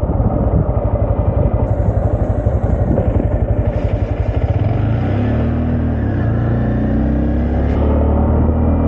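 Honda Grom's 125cc single-cylinder engine running as the bike is ridden. It has a rapid pulsing for the first few seconds, then runs smoother, its pitch rising and falling with the revs.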